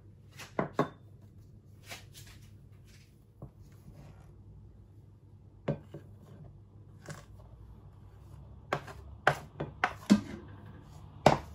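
A metal spoon tapping and scraping against a plate and a glass mixing bowl as flour is spooned into cake batter: scattered sharp clicks, a couple about a second in and a cluster near the end.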